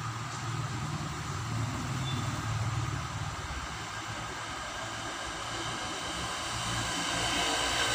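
Steady low mechanical rumble under a hiss, like distant engine noise, growing louder near the end.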